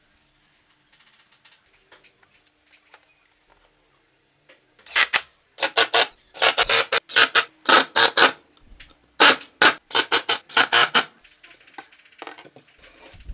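Cordless impact driver driving screws into plywood: a series of about eight short, loud bursts, one per screw or pull of the trigger, starting about five seconds in after some faint handling noise.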